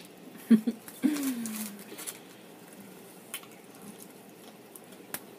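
A woman chewing a mouthful of food with her mouth closed, making two short hums about half a second in, then a longer 'mmm' that falls in pitch, followed by faint mouth clicks as she keeps chewing.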